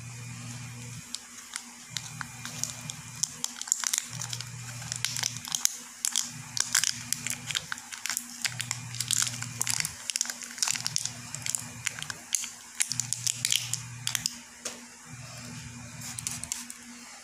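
Paper label crinkling and tearing in the hands as it is peeled off a small plastic inhaler, a dense run of sharp crackles that thins out near the end. A low hum comes and goes underneath every second or two.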